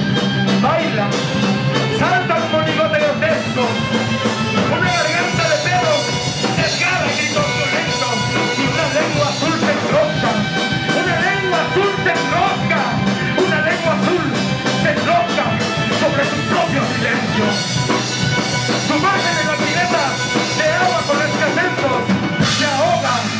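Live instrumental rock: drum kit and electric guitar playing steadily, with a violin line wavering over them.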